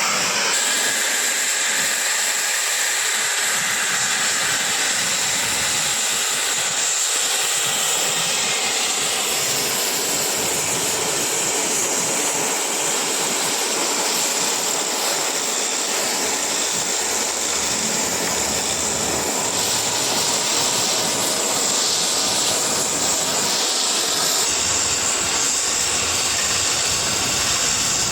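Cutting torch cutting through 50 mm thick mild steel plate: a loud, steady hiss of the gas jet with no break.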